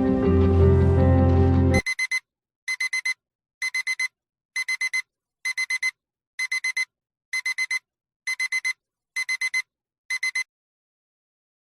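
Music cuts off abruptly, then a digital alarm clock beeps: quick groups of about four high beeps, repeated about once a second, ten times.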